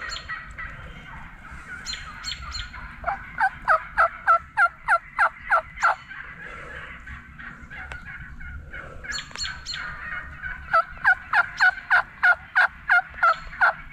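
Wild turkey yelping: two runs of evenly spaced, falling yelps, about ten in the first run and a dozen in the second, at roughly three or four a second.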